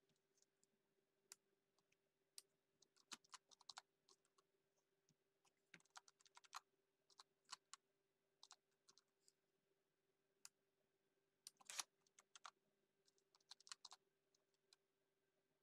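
Faint typing on a computer keyboard: irregular runs of quick keystroke clicks with short pauses between, the loudest cluster about three quarters of the way through, over a faint steady hum.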